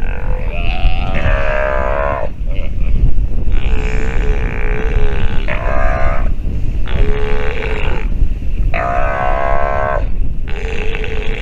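Steller sea lion pup giving a series of drawn-out, roar-like calls, each about one to two seconds long with short gaps between them. The pitch wavers slightly within each call.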